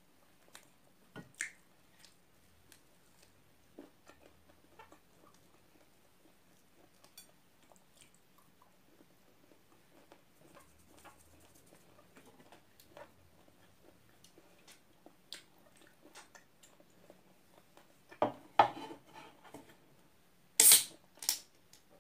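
Close-up eating sounds of fried chicken eaten by hand: soft chewing and small scattered clicks and squelches as fingers pull the meat apart. Near the end come a few much louder sharp clicks and knocks.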